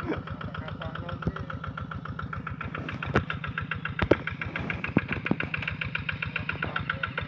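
Engine of a rice-paddy plowing tractor running steadily with an even, rapid beat, with a couple of sharp knocks about three and four seconds in.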